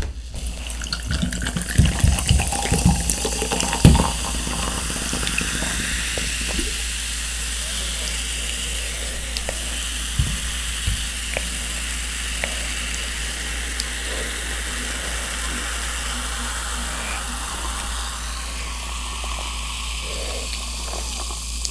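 Coca-Cola poured from a can over ice into a glass mason-jar mug, with clinks and knocks in the first few seconds, followed by a long, steady fizzing of the carbonation as the foam settles.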